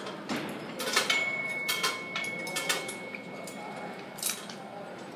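Gym clatter: metal weights and cable-machine parts clinking and clanking several times, with a thin high steady tone lasting about a second and a half starting about a second in.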